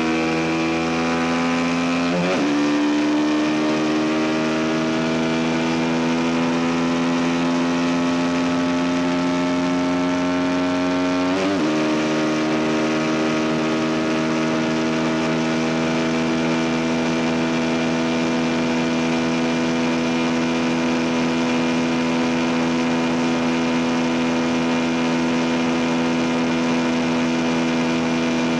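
CF Moto 250NK's single-cylinder engine running at near-steady revs under way, its note briefly dipping and recovering twice, about two seconds in and again near the middle.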